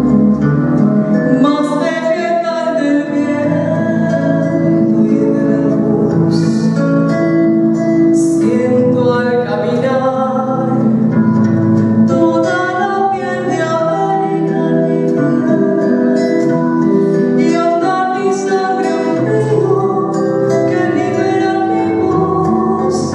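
A woman singing a song into a microphone over instrumental accompaniment, amplified through the stage sound system.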